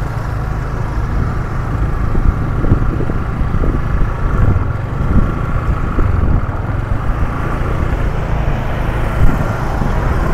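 Steady road and traffic noise of a vehicle travelling along a busy city road, with a constant low rumble.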